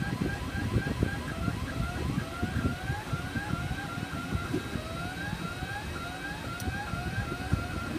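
XYZprinting da Vinci 1.0 3D printer running a print: its stepper motors whine in short rising chirps, about two or three a second, as the print head moves back and forth, over a low irregular rattle.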